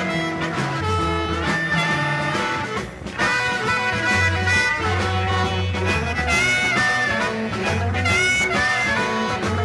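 Live blues-rock band music: electric guitar over a repeating bass line and drums.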